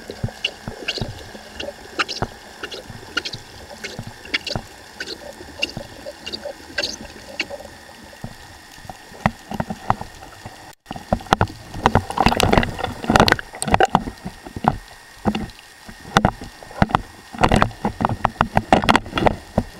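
Underwater sound picked up through a camera housing: scattered sharp clicks over a steady water hiss, then, after a cut about eleven seconds in, louder clusters of rushing water, bubbles and knocks from handling the speargun and its line.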